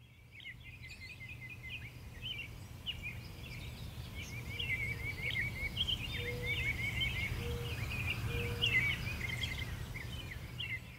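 Forest birds singing, many short chirps and trills overlapping, over a steady low background rumble; the sound fades in at the start. A few short, lower-pitched calls repeat about once a second in the middle.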